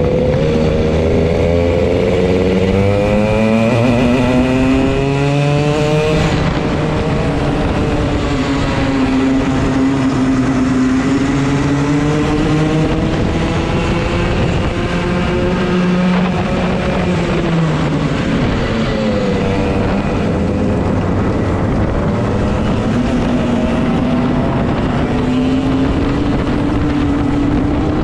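Racing kart's two-stroke engine at race pace, heard on board. It revs up hard for the first six seconds, then drops back and climbs again several times as it goes through corners and straights.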